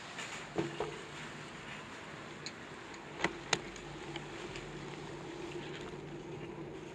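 Bicycle riding on pavement: a steady low hum that comes in about half a second in, with two sharp clicks close together a little past the middle.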